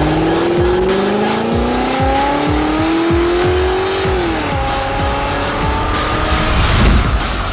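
Car engine accelerating hard, its pitch climbing steadily, dropping at a gear change about four seconds in and climbing again, over music.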